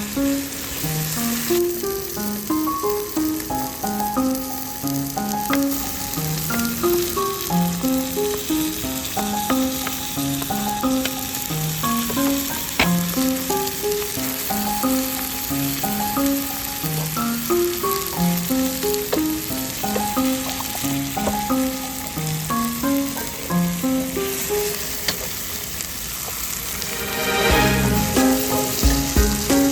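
Food sizzling in a hot pan under background music, a melody of clear stepped notes. Near the end there is a louder, rougher noisy stretch.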